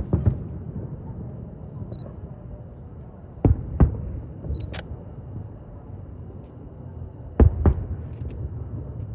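Fireworks exploding: two pairs of sharp bangs, the pairs about four seconds apart, over a steady low rumble.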